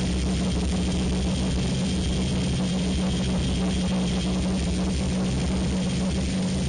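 Steady drone of the B-29's four Wright R-3350 radial engines in flight, heard from inside the cockpit.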